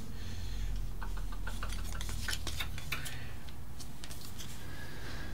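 Light clicks and taps as an RC biplane's interplane strut is handled and tried against the wing, bunched in the first half, over a steady low hum.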